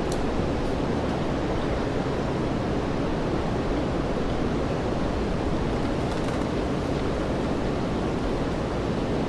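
Steady rainfall on a wet city street, an even hiss that does not let up.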